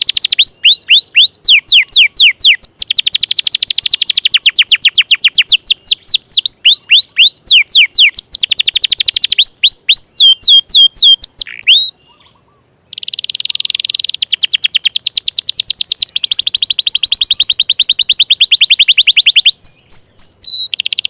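Domestic canary singing a long, loud song of rapid trills, each made of fast repeated falling notes, changing from one trill to the next. The song breaks off for about a second just after halfway, then carries on.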